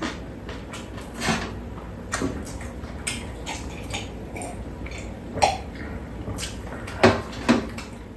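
Scattered light clicks and knocks of mugs and a metal plate handled on a metal tray table during a meal, with a couple of louder knocks near the end.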